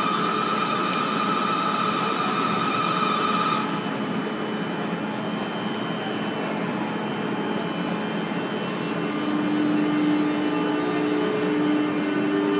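BB 27300 electric locomotive standing at the platform with its electrical equipment running. There is a high steady whine that stops about four seconds in, a steady low hum throughout, and a further tone from about nine seconds in, over the echoing noise of a large station hall.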